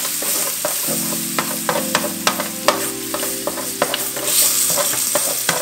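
Beef short ribs sizzling as they sear in oil in a stainless steel roasting pan on high heat, with many sharp clicks and scrapes of a utensil against the pan as tomato paste is worked in to cook down among the meat.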